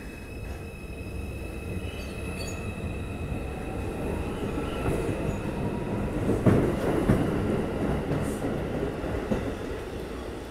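R142 subway train pulling away along the platform, its wheels squealing on the rails. The rail noise builds to its loudest with a couple of sharp knocks about two-thirds through, then eases as the cars move off.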